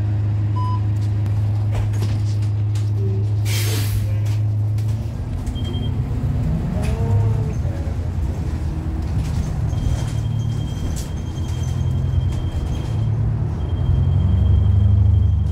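Inside a 2013 New Flyer XDE40 diesel-hybrid bus (Cummins ISL9 engine, Allison hybrid drive): a steady low hum, then a short air-brake hiss about four seconds in. The drone then turns rougher and uneven as the bus moves, with a brief gliding whine, and a thin high steady tone comes in from about ten seconds.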